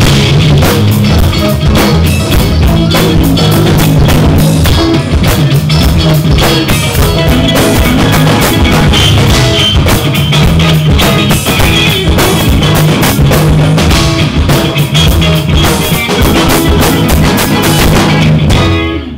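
Live rock band playing loud: electric guitars, bass guitar and a drum kit. The song stops right at the end.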